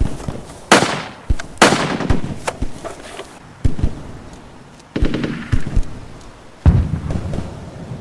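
Battlefield gunfire: about five loud single shots a second or two apart, each trailing off in a short echo, with lighter cracks between them.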